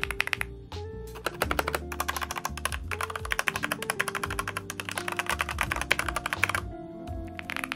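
Rapid typing on a linear-switch mechanical keyboard, fast strings of keystrokes that break off briefly about half a second in and again near the end.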